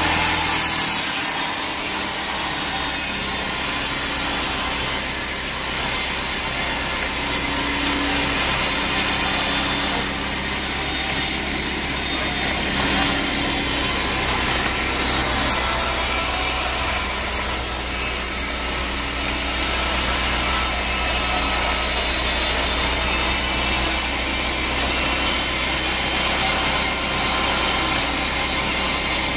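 Sawmill saw blade cutting lengthwise through a teak log: a steady, dense rasping hiss over the low, even hum of the mill's motor.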